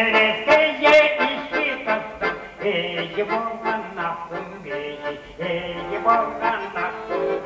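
A man singing a Tuvan song to accordion accompaniment.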